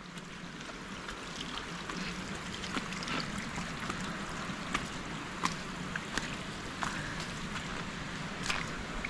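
Steady rush of running water, with scattered light clicks and taps throughout.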